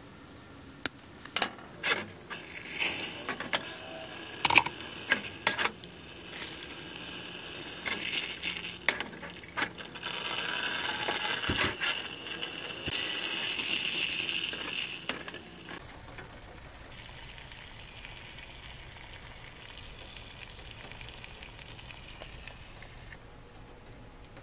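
Pieces of dark brown slab sugar clicking and knocking as they are broken by hand and dropped into a stainless steel saucepan. From about eight seconds in, the sugar water hisses and bubbles as it simmers, stopping at about fifteen seconds and leaving only a faint steady hiss.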